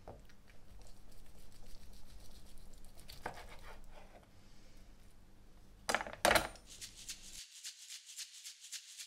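A large knife slicing through a block of cooked pork chashu on a cutting board, with two sharp knocks of the blade on the board about six seconds in. Then music starts, with a fast, high-pitched ticking rhythm.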